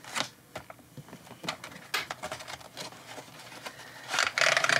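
Cardboard colored-pencil box being opened by hand: scattered light taps and clicks of the packaging, then a louder rough scraping rustle of cardboard about four seconds in.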